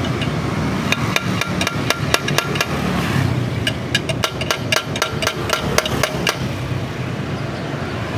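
Rapid metal-on-metal hammering: a steel pipe striking a T-wrench welded onto a Honda Vario 125 FI's inner final-drive bearing, to knock the bearing out of its housing. Sharp ringing strikes at about four a second, in two runs with a short pause about three seconds in.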